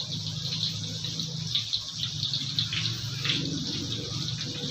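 Water running from a kitchen tap into a sink, a steady splashing hiss, with a low steady hum underneath.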